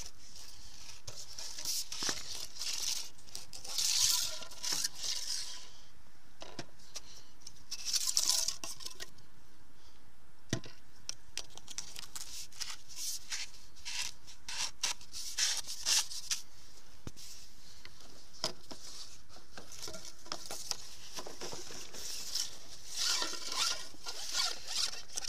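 Close handling noise as fishing-pole sections are moved by hand: rustling and scraping in several bursts, with scattered light clicks and taps.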